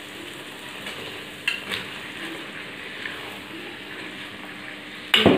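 Spice paste for chicken curry frying with a steady sizzle in a wok as raw chicken pieces are tipped in and stirred with a metal spatula. A few short knocks come through, the loudest near the end.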